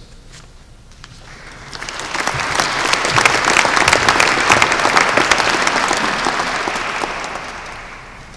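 Audience applauding: the clapping swells about a second and a half in, holds, and dies away near the end.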